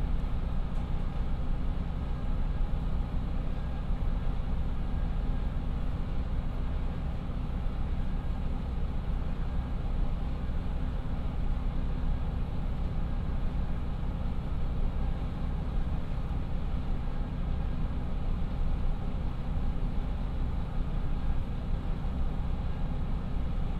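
The KiHa 54 diesel railcar's two Niigata DMF13HS engines idling steadily while the car stands still, heard from inside the passenger cabin as an even low hum.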